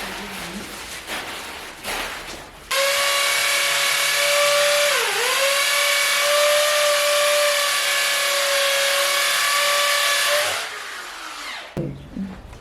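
Electric drill running for about eight seconds as a steady high whine. About two seconds in, its pitch dips briefly as it bites under load, and it winds down in pitch when it is released.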